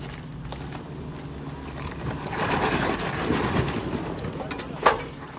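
Off-road 4x4 crawling a rock ledge: the engine runs low and steady while rough grinding noise builds from about two seconds in, then a single sharp knock comes near the end.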